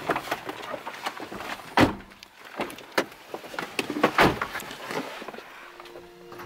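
Passengers getting out of a pickup truck's back seat: the door handling and clothing rustling, with three sharp knocks about two, three and four seconds in, the last the loudest.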